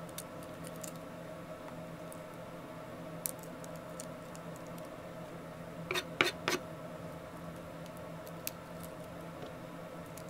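Fingers peeling garlic cloves over a wooden cutting board: scattered small clicks and scratches of papery skin, with three sharper knocks on the board about six seconds in. A steady low hum runs underneath.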